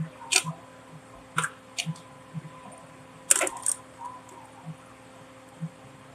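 Scattered sharp clicks and taps, loudest about half a second in and again around three and a half seconds, over a faint steady hum.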